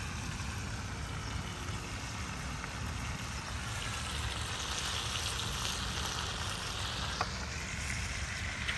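Potatoes frying in oil in a pan, with a steady sizzle over a continuous low rumble and a single click about seven seconds in.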